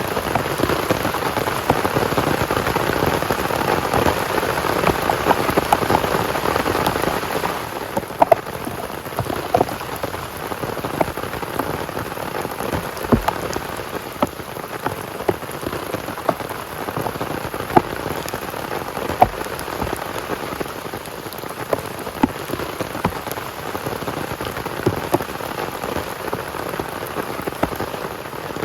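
Heavy rain falling steadily onto a surface, a dense patter with scattered sharper drop ticks; it eases slightly about eight seconds in.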